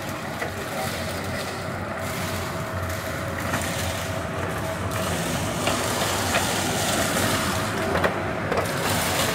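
TSM ARIA 240 electric street vacuum running, its suction making a steady rush of air with a faint steady whine. Dry leaves rattle and crackle as the hand hose sucks them up, with scattered sharp ticks in the second half.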